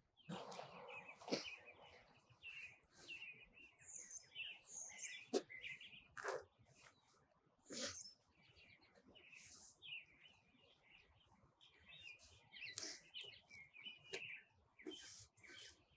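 Faint birdsong: small birds chirping again and again, with a few soft clicks in between.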